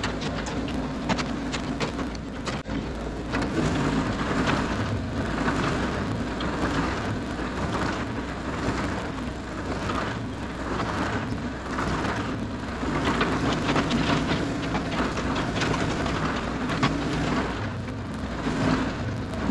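Cat 307SSR excavator digging a hillside: its diesel engine runs steadily, with a constant gritty hiss and many scattered clicks and knocks over it.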